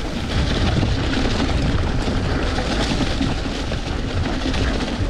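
Wind buffeting the rider's microphone, with the rolling rattle of a mountain bike running down a dirt trail.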